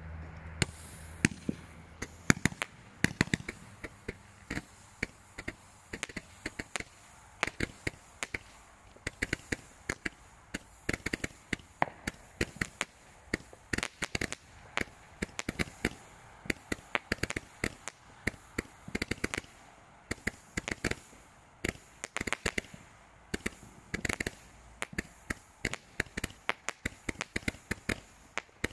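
Broekhoff Multicolor Parade, a Class F2 consumer firework, going off in a rapid, irregular string of sharp pops and cracks, several a second, starting about a second in.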